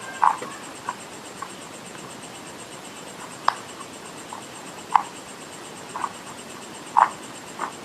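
Close-up mouth sounds of eating crunchy clay: sharp, irregular crunches about once a second as it is bitten and chewed.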